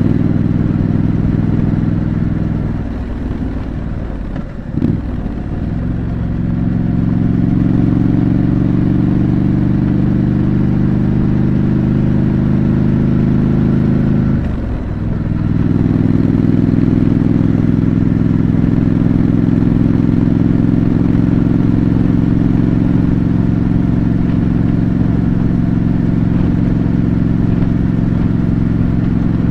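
Triumph Scrambler 900's parallel-twin engine running under way through its stock exhaust. The engine note sags and dips for a couple of seconds around four to five seconds in, with one sharp knock, and dips briefly again about fifteen seconds in before running steadily.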